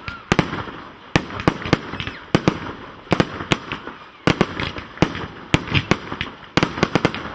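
Professional aerial firework display: shells from cakes and candles bursting in quick clusters of sharp bangs about once a second, with crackle between the bursts.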